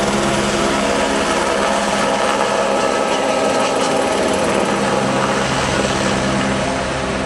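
A loud, steady mechanical drone from a running engine or motor, holding one pitch without revving.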